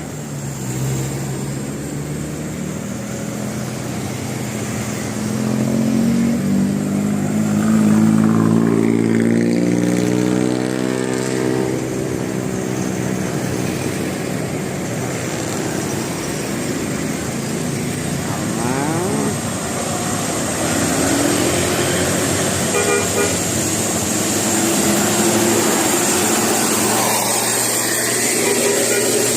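A bus engine running amid road noise. The engine's pitch rises and then falls again about a quarter to a third of the way in, with smaller pitch changes later on.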